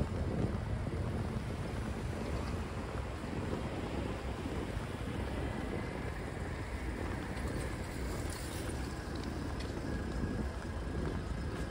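Steady city street ambience: a low, even rumble of traffic with wind buffeting the microphone.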